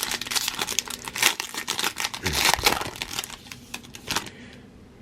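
Wrapper of a sealed trading card pack crinkling and tearing as it is ripped open by hand, a dense crackle that stops about four seconds in.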